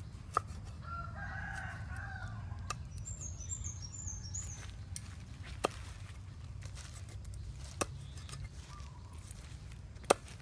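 A rooster crows once about a second in, and small birds chirp briefly a little later. A knife chops on a wooden cutting board in sharp single knocks every two to three seconds, the loudest near the end.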